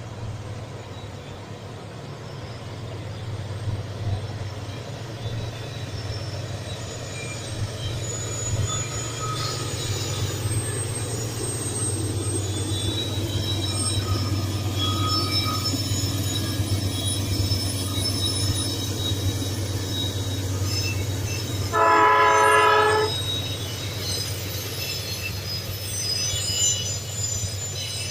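A train rumbling past, its low steady rumble growing louder, with high-pitched wheel squeals. About two-thirds of the way through it sounds one horn blast lasting about a second.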